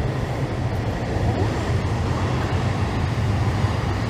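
Steady low rumble with a broad hiss over it, like street or passing-vehicle noise, holding even throughout.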